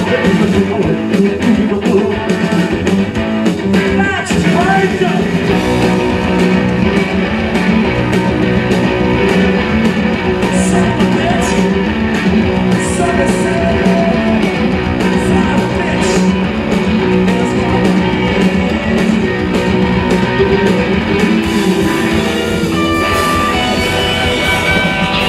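Blues-rock trio playing live and loud, with two electric guitars and drums.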